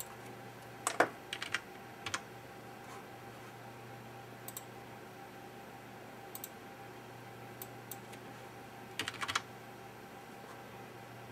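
Scattered light clicks like key or button presses, in small clusters about a second in and again around nine seconds, over a steady low hum while a BGA rework station heats the chip.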